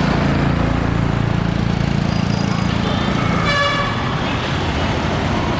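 Road traffic running by, with a steady engine hum, and one short vehicle horn toot about three and a half seconds in.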